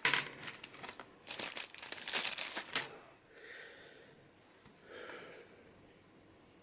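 Crinkling and rustling of packaging being handled, a dense crackle that stops about three seconds in.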